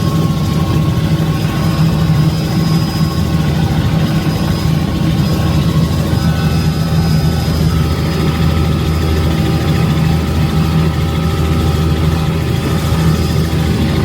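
Helicopter in flight: a steady, loud drone of engine and rotor.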